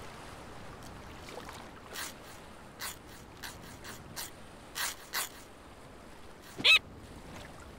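Cartoon seagull sniffing and pecking at a stick: a string of short, breathy sniffs over a soft wash of sea, then one brief squawk rising in pitch near the end, the loudest sound.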